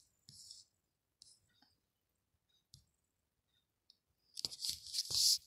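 Quiet room tone with a few faint mouth clicks, then a breathy hiss in short pulses from about four seconds in as a person breathes in.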